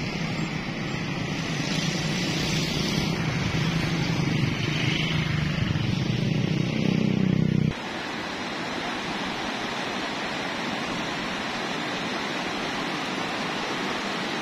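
Geothermal steam vent giving off a loud, steady hiss of escaping steam. About eight seconds in, a sudden cut leaves a quieter, steady rushing noise.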